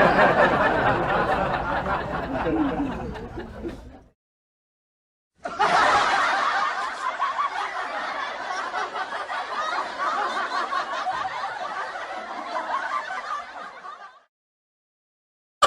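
Two laughter sound effects one after the other: the first fades out about four seconds in, and after a short silence a second, longer laugh starts and fades away near the end.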